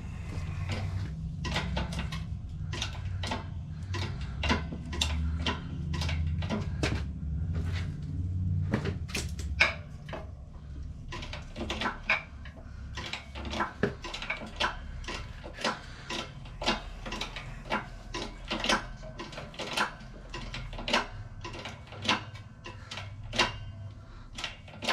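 Repeated metallic clicks and clacks, several a second and unevenly spaced, as a hydraulic bottle-jack shop press is pumped to drive a new cylinder liner into a Mercedes OM617 diesel block. A low rumble sits under the clicks for the first half.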